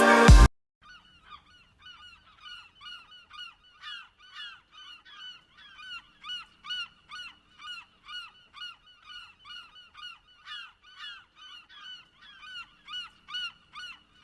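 A flock of geese honking, many short calls overlapping several times a second.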